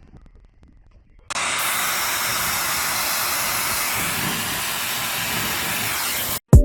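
A loud, steady hiss like spraying water or escaping steam starts about a second in. It cuts off suddenly near the end and is followed by a brief loud thump.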